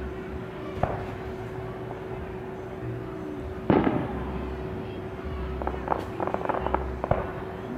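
Aerial firework: a small pop near the start, then the shell bursts with a loud bang a little under four seconds in, followed a couple of seconds later by a quick run of crackling pops.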